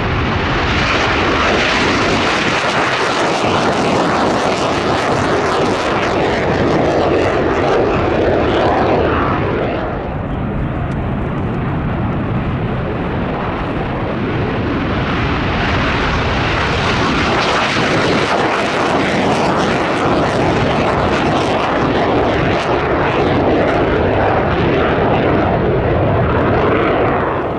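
Hellenic Air Force F-4E Phantom II taking off: its two General Electric J79 turbojets at takeoff power give a loud, continuous jet roar. The roar eases about ten seconds in, swells again from about fifteen seconds, and fades as the jet climbs away at the end.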